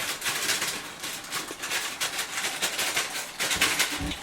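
Boxed chocolate cake mix being poured into a bowl: an irregular rustling hiss of powder and packet, with a low dull thud near the end.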